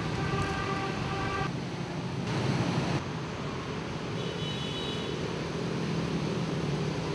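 Steady street traffic noise, a constant hum, with a brief pitched tone in the first second or so and a higher one around four seconds in.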